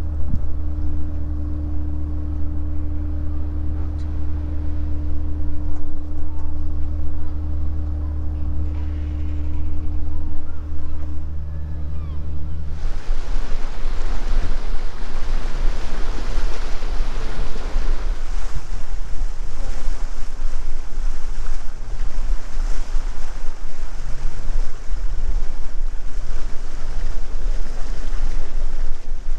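A boat's diesel engine running steadily with a low hum; about thirteen seconds in this gives way to wind buffeting the microphone and water rushing along the hull of a sailboat under way.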